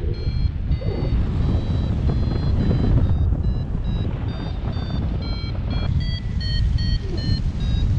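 Paraglider variometer beeping in short tones, about three a second, the pitch shifting up and down: the tone it gives when the glider is climbing in rising air. Under it, steady wind rush on the microphone.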